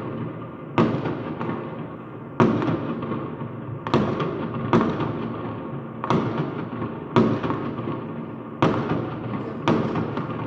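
Fireworks going off: about eight sharp bangs at uneven intervals, each fading out in an echo over roughly a second.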